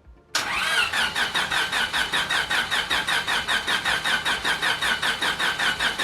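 Freshly rebuilt Honda D16 engine cranking over on its starter motor without firing. There is a short rising starter whine at the start, then a steady pulse of about six compression strokes a second.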